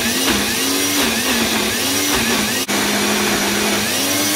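Smoothie-maker blender running, its motor churning a thick mixture of chickpeas and olive oil into hummus. The motor's pitch keeps rising and dipping, and it breaks off for an instant about two and a half seconds in.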